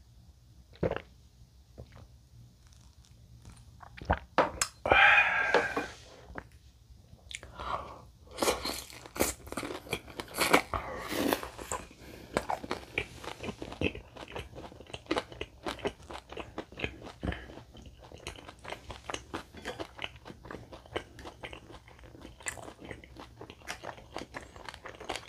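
Close-miked crunchy chewing and biting of crispy fried sweet-and-sour pork (tangsuyuk), dense irregular crunches through most of the stretch. A single knock about a second in, like a shot glass set down, and a louder noisy burst around five seconds in.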